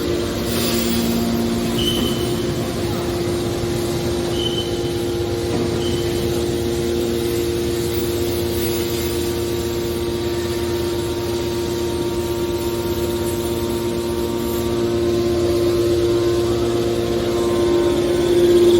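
Hydraulic power unit of a car shear baler running with a steady hum, with three brief high squeaks in the first six seconds and a slight rise in loudness near the end.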